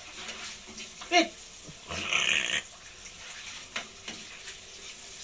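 Marlin scraps frying in oil in a pan with a faint, steady sizzle, and a loud burst of sizzling for about half a second about two seconds in. About a second in comes a short, loud, high-pitched cry, like a dog's yelp.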